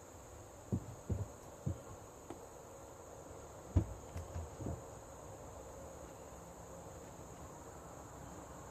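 Insects chirring steadily in the background, with several short, dull knocks and bumps; the loudest comes about four seconds in.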